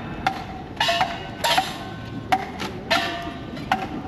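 Japanese festival percussion being practised: sharp, irregular strikes, about two a second, each with a short ringing tail.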